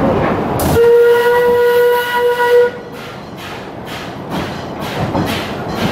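Steam locomotive whistle of the Western River Railroad blowing one steady note for about two seconds over the train's running rumble. After it the train runs on more quietly with a series of short, evenly repeating hisses.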